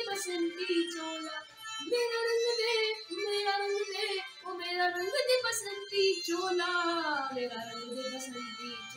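A high voice singing a slow melody in long held notes, with a slow downward glide about seven seconds in.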